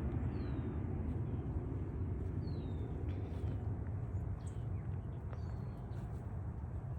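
A bird calling three times, each a short downward-sliding whistle, over a steady low rumble.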